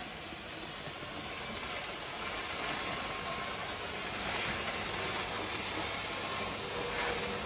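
Teflon cable production line machinery running: a steady mechanical hum and hiss with a faint, intermittent whine.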